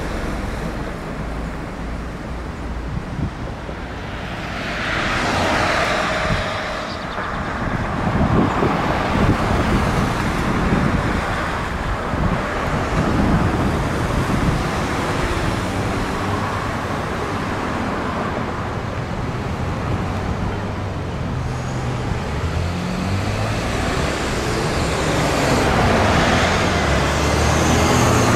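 Road traffic: cars passing one after another in a steady wash of tyre and engine noise, with a louder pass about five seconds in and a low engine hum building near the end.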